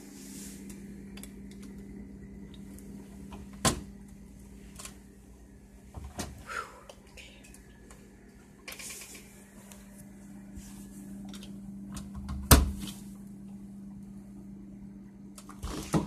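Steady low hum in a small room, with rustling from a phone being handled and moved. Two sharp knocks, about four seconds in and again about twelve seconds in.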